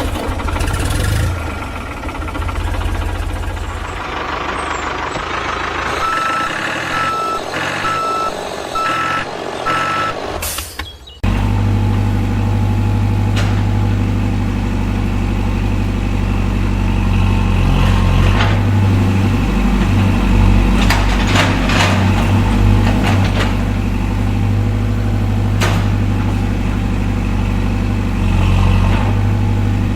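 Truck sound effects: an engine running with a reversing alarm beeping several times in a row, then an abrupt cut about eleven seconds in to a steady, heavy engine drone that carries on.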